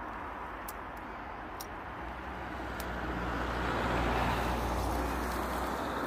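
A road vehicle passing, its engine and tyre noise swelling to a peak about four seconds in, then easing off.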